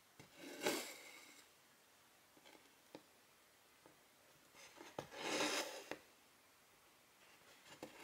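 Silk cross-stitch thread being drawn through the fabric twice, each pull a soft rasping rub lasting about a second, with faint ticks of the needle between them.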